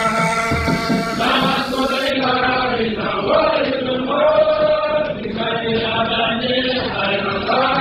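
Voices chanting in long held notes, a sung chant laid over the footage as a soundtrack.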